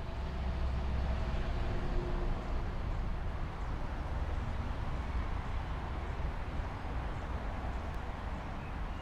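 Steady rush of a flowing river, with an unsteady low rumble underneath.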